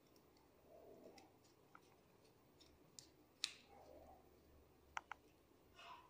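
Faint clicks and scrapes of a small screwdriver working the screw terminal of a W1209 thermostat board as the wires are tightened. The sharpest click comes about three and a half seconds in, with a quick pair of clicks near five seconds.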